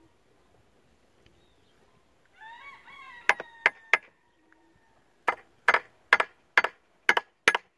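Hammer striking the starter motor of a Johnson V4 outboard: nine sharp metal knocks, three close together and then six more at about two a second. Just before the knocks comes a short, high, wavering call, like a bird's.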